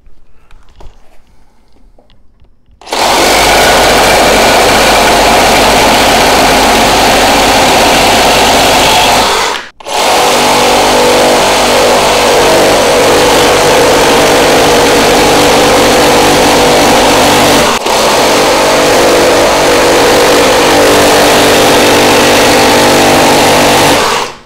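Makita XGT 40V Gen 2 reciprocating saw (GRJ02) at top speed with orbital action off, sawing through a treated 4x4 post. The loud, steady sawing starts about three seconds in and breaks off briefly twice, once near the middle and once later, making three cuts.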